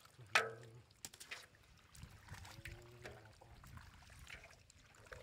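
Live catfish squirming and slapping against one another in a basin of muddy water as hands sort through them, with scattered wet splashes and clicks.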